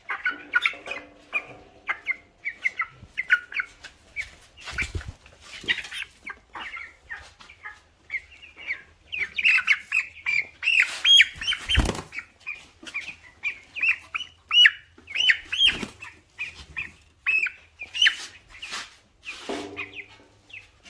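Young broiler chickens peeping and cheeping in quick, short calls, joined by several bursts of wing flapping and rustling, the loudest about twelve seconds in.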